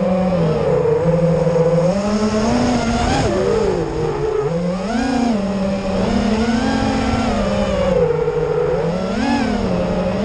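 FPV quadcopter's brushless motors and propellers whining as heard on board, the pitch rising and falling again and again with throttle changes during freestyle flying.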